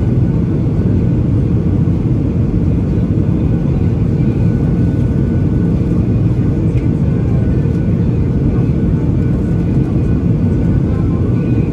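Steady low rumble of cabin noise inside a Boeing 737-800 in flight: its CFM56-7B turbofan engines and the airflow over the fuselage.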